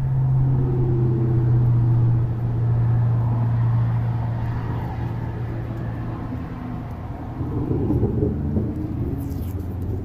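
A motor vehicle engine running with a steady low hum, with a few short clicks and rustles near the end.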